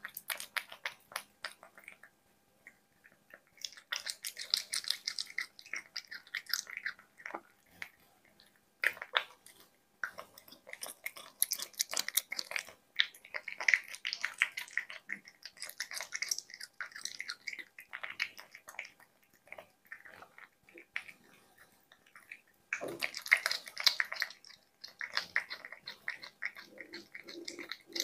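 A cat eating chunks of duck breast with boiled egg from a bowl, heard close up: chewing and biting in irregular bursts of wet clicks, with short pauses between mouthfuls.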